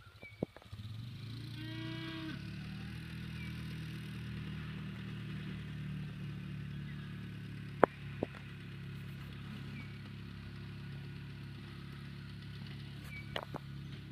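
Cattle mooing, with one higher call about two seconds in over a steady low drone. A few sharp cracks sound, the loudest just under eight seconds in.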